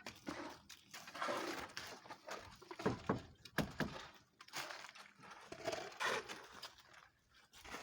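Wet concrete being poured and worked, an irregular sloshing noise with a few sharp knocks about three seconds in.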